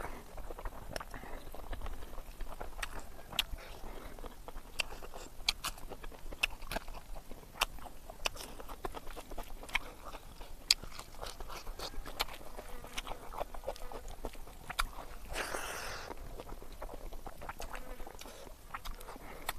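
A person chewing and smacking their lips over mouthfuls of rice, curry and raw leafy greens, with frequent sharp wet mouth clicks. A brief rushing noise comes about three-quarters of the way through.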